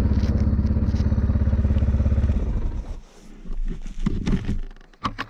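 Linhai 500 ATV's single-cylinder engine running steadily with a low, pulsing note, then stopping about halfway through, followed by scattered clatter and rustling.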